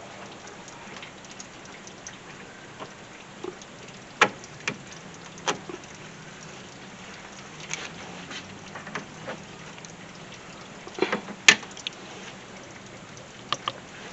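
Scattered sharp clicks and knocks of parts and tools being handled in a car's engine bay, over a steady hiss. The loudest knock comes near the end.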